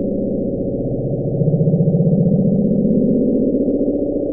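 The Bloop, a hydrophone recording of a low underwater sound: a throbbing rumble with nothing above about 800 Hz, rising in pitch and growing louder through the middle. NOAA attributed it to an icequake.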